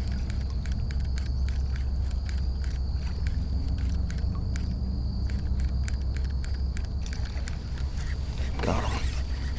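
Wind buffeting the microphone as a steady low rumble, with a run of light rapid ticks that stops about seven and a half seconds in and a brief louder rustle near the end.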